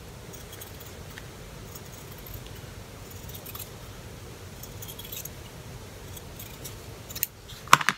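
Scissors snipping and handling fabric, faint scattered clicks over a steady low room hum, with a few sharper clicks near the end.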